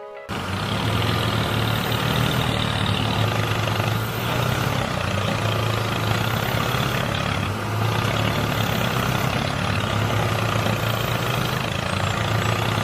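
Steady engine running, a low hum under a broad noisy haze, starting suddenly and cutting off suddenly near the end.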